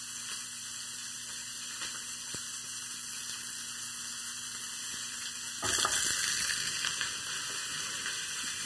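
Bratwurst sizzling in a hot cast-iron skillet. More than halfway through, sliced onions and peppers are tipped into the pan and the sizzle suddenly grows louder.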